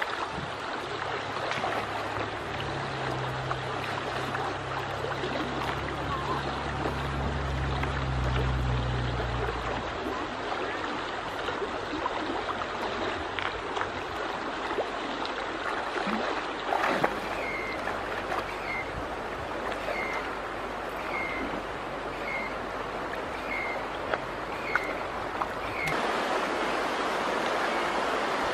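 Steady rush of flowing river water over stones. A low hum runs under it for the first ten seconds. From about halfway, a bird repeats a short high call about once a second, some nine times.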